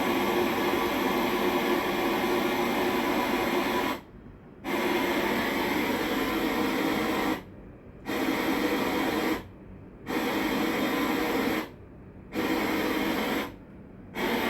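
Car radio hissing with static and no programme. The hiss cuts out briefly five times, each drop about half a second long.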